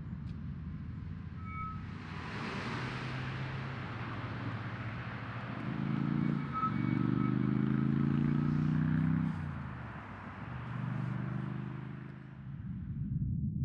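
A motor vehicle's engine running, its hum changing pitch a few times. Road noise swells about two seconds in and fades away near the end, as if the vehicle passes by. A few short high beeps sound faintly.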